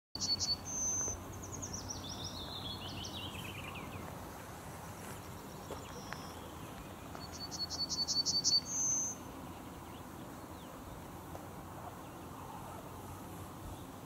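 Songbirds singing in two high, quick phrases. The first steps down in pitch over about three seconds, and the second comes about seven seconds in. A faint, steady outdoor hiss runs underneath.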